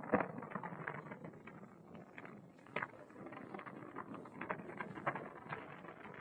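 Snowboard sliding over snow: an uneven scraping hiss full of small crackles, with a louder crunch just after the start.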